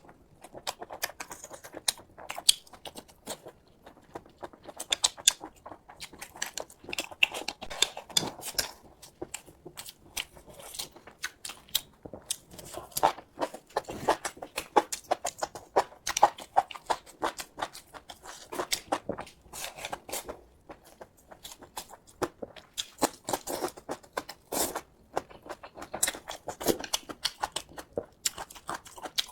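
Close-miked eating sounds: irregular chewing, lip smacks and the tearing of food, a quick run of short clicks and smacks throughout.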